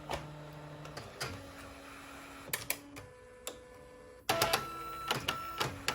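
Canon BJ130E bubble jet printer mechanism running: a low motor whir with scattered clicks. About four seconds in it turns abruptly louder, with a steady higher whine and more clicks. This fits the machine moving its print head to be capped and cleaned.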